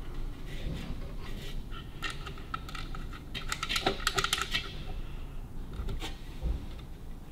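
Light metallic clicking and jingling of small metal parts as a marker lamp is handled and tried on a sidecar mudguard, with a quick run of clicks about halfway through.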